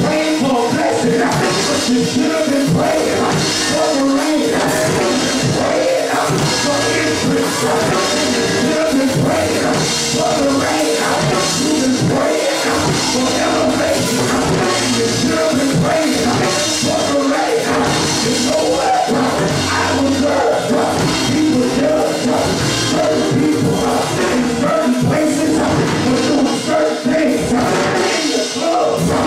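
Live gospel praise music with a steady drum-kit beat, and a man singing into a handheld microphone over the band.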